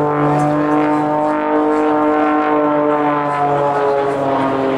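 Aerobatic propeller plane's engine running steadily in flight, one even drone whose pitch dips slightly near the end.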